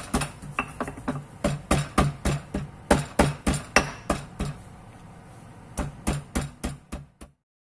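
Stone pestle (ulekan) pounding whole shallot and garlic cloves in a stone cobek mortar: sharp stone-on-stone knocks, about three to four a second, the start of grinding a spice paste. The pounding stops briefly about two-thirds through, starts again, then cuts off suddenly near the end.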